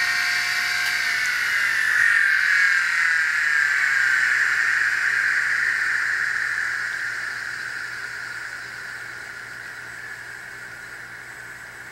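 Four uncovered MiniScribe 3425 hard drives spinning down together: their whine of several tones stops holding steady about a second in, then slides lower in pitch and fades steadily as the platters coast down.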